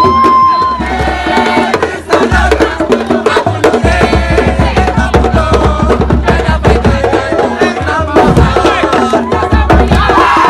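Music with a busy, fast beat of hand percussion over a steady bass.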